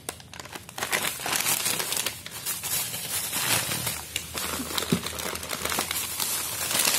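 Thin plastic packaging crinkling and rustling as it is handled: a plastic courier bag and a plastic detergent pouch being moved and crumpled. The crinkling starts about half a second in and keeps going as a dense crackle.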